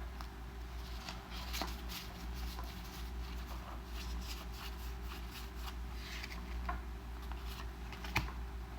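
Magic: The Gathering cards being handled and flipped through, faint scattered rustles and light clicks with a sharper click near the end, over a steady low hum.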